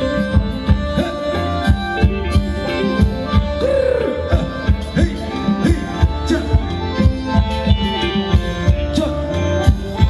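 Live Thai ramwong dance band playing an instrumental passage, with a steady drum beat under sustained melodic lines.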